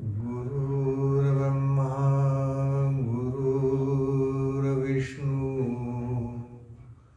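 A man's voice chanting a mantra in long notes held on one low, steady pitch, with new notes starting about three and five seconds in, fading away near the end.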